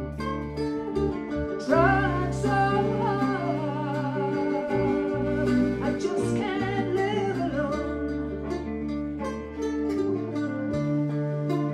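Live blues band playing: a woman sings over bass guitar, plucked strings and drums.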